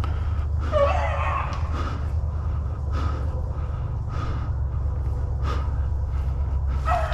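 A person breathing hard while stepping through swamp brush, with a few separate crunching steps over a steady low rumble. A beagle gives one short bay about a second in.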